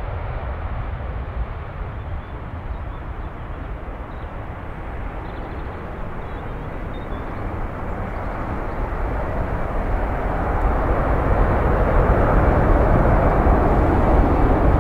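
Airbus A330-243 airliner's twin Rolls-Royce Trent 700 turbofans at take-off thrust during lift-off and initial climb: a steady jet roar with a deep rumble, growing louder in the second half.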